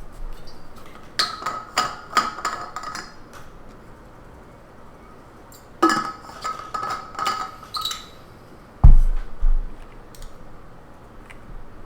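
Hard objects clinking and tapping in two quick clusters, with a short ringing note. Near the end comes a heavy thump, the loudest sound, followed by a smaller one.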